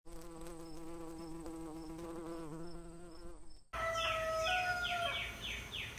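Steady buzzing of a bee, wavering slightly in pitch, that cuts off suddenly about three and a half seconds in. Birds then sing, with a quick run of repeated downward-slurred notes.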